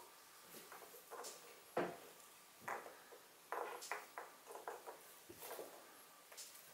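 Toy terrier puppy gnawing a small chew on a wooden floor: faint, irregular small clicks and knocks, with a sharper knock about two seconds in and a quick run of them a little later.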